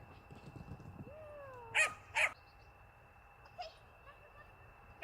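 Puppy giving a short rising and falling whine, then two sharp, high barks about half a second apart, and a single small yip a little later.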